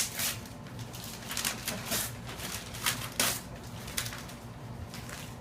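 Paper gift packaging being ripped open by hand: a string of short, irregular tearing and rustling sounds.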